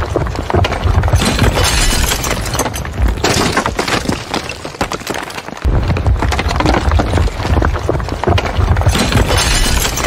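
Bridge collapse sound effect: a dense crashing and crackling of breaking, shattering debris over a low rumble. The rumble drops away about halfway through, then swells back in.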